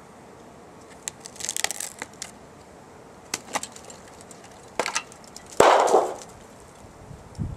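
A series of irregular cracks and snaps, with a louder crunching crack about five and a half seconds in that dies away over half a second.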